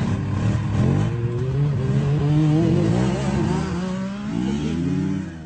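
Quad bike (ATV) engine revving, its pitch rising and falling several times as the machine pulls away across sand, getting a little quieter near the end.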